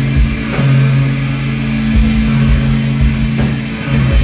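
Live instrumental post-rock band playing loud: electric guitars and bass hold long low notes that shift every second or two, over a few drum-kit hits.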